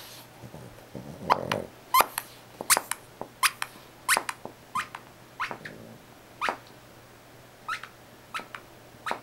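Small dog plucking fur off a plush toy fox with its teeth: a run of short, sharp tugs, about one every half second. A brief low grumble from the dog comes about a second in.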